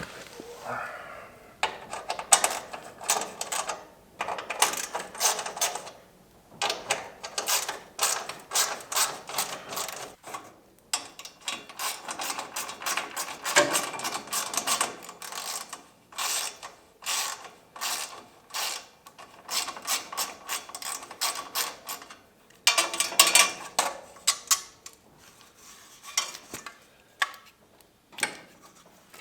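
Ratchet wrench clicking in repeated short runs, with brief pauses between, as bolts are undone to take the grill off a tractor.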